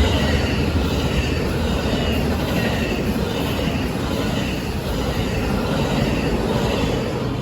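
Train cars rolling past on the rails: a steady rumble and rattle, with faint high wheel squeal.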